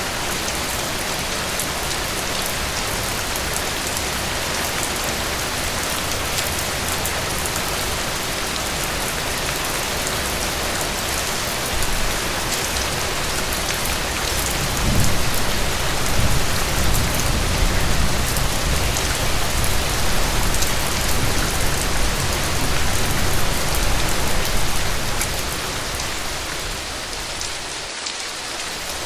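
Heavy rain falling steadily. A low rumble swells up about halfway through and dies away a few seconds before the end.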